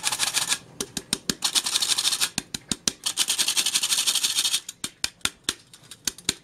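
Hand-operated stainless-steel flour sifter sifting cocoa, its mechanism working the powder through the mesh with a dry rasping and rapid metallic clicking. The sound comes in spells of dense rasping broken by sharp ticks, ending in a run of separate clicks.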